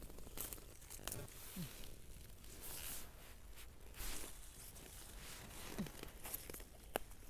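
Leaves and stems rustling and tearing as wild garlic flower stalks are picked and snapped off by hand, with scattered sharp snaps, the loudest near the end.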